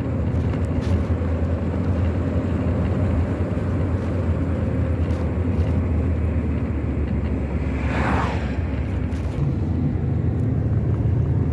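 Steady low road rumble of a moving car heard from inside the cabin, with a brief hissing whoosh about eight seconds in.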